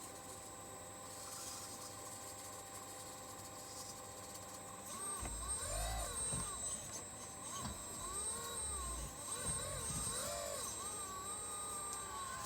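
Radio-controlled model excavator's motors whining, starting about five seconds in and sliding up and down in pitch as it works, with a few low thuds.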